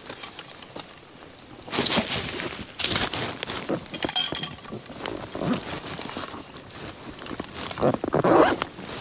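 A zipper being pulled on a backpack, with rustling as someone rummages in it, in several short bursts.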